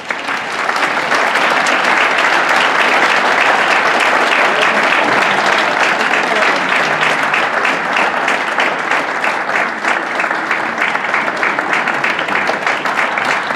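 A large concert-hall audience applauding steadily. The clapping comes in at once at full strength and holds without a break.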